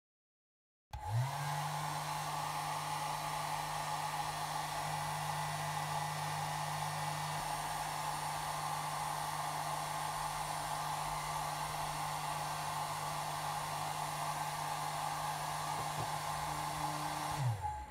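Handheld hair dryer switched on about a second in: the motor spins up quickly, then blows steadily with a low motor hum under the rush of air. Near the end it is switched off and the motor winds down.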